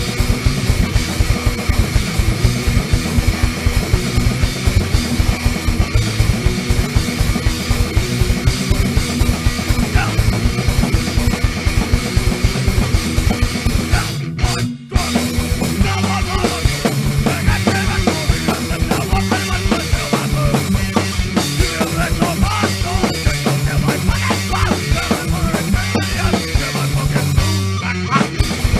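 Punk rock band playing fast and loud: distorted electric guitar, bass and drum kit, stopping dead for a split second about halfway through, then crashing back in.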